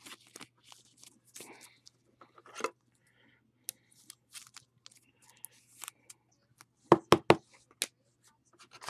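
Trading cards and their packaging being handled by hand: scattered rustling, scraping and light clicks, with three quick sharp knocks about seven seconds in.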